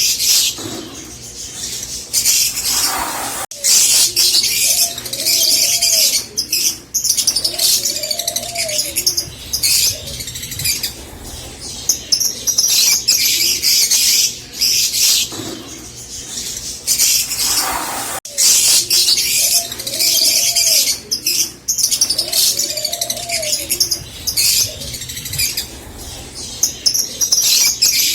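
Green Fischer's lovebirds chirping and singing in long, rapid, high-pitched chattering runs, with a couple of short quieter pauses. A few softer rising-and-falling calls sound lower beneath the chatter.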